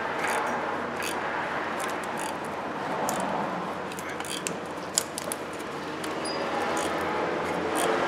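Hand ratchet and socket working a rusted 10 mm fastener loose on a starter wire: irregular ratchet clicks and metal scraping over a steady background hiss.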